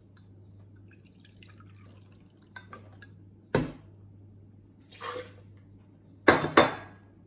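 Water poured from a small metal measuring cup into a blender jar of pomegranate pulp, with a sharp knock about halfway and two louder clatters of kitchenware near the end.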